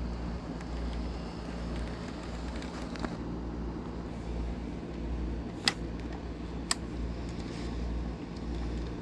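Model train running on the layout's track: a steady low rumble with a hum, and two sharp clicks about a second apart a little past the middle.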